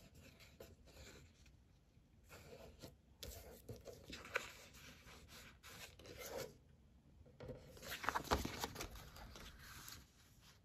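A sheet of sticker label paper rustling and rubbing against a planner page as hands position it and press it flat. There are louder scrapes and crinkles about four seconds in and again about eight seconds in.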